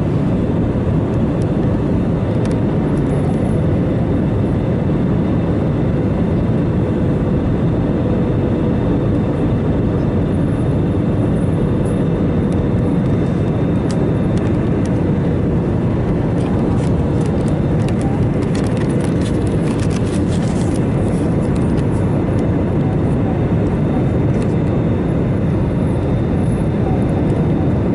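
Steady jet-engine and airflow noise inside the cabin of an Airbus A320-family airliner on its landing approach, with a faint steady hum. There are scattered light ticks and rattles about halfway through.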